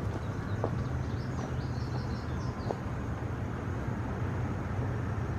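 Steady low outdoor rumble, with a bird giving a quick run of high chirps about a second and a half in.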